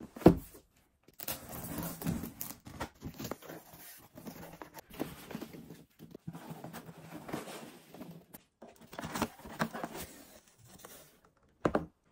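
Cardboard box and foam packing peanuts handled by hand during unpacking: irregular rustling, scraping and crinkling bursts as the peanuts are pushed aside and lifted out. A sharp knock comes about a quarter second in, and a short rustle comes near the end.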